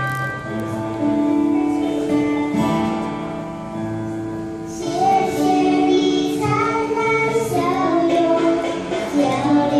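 Song with instrumental backing. The first half holds steady accompaniment notes, and about halfway through a girl and a woman start singing together into handheld microphones.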